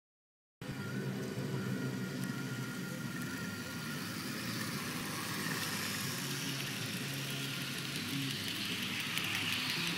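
Märklin HO-scale model train rolling past on its track: a steady electric-motor hum with fine ticking of wheels on rail, starting suddenly just under a second in after silence.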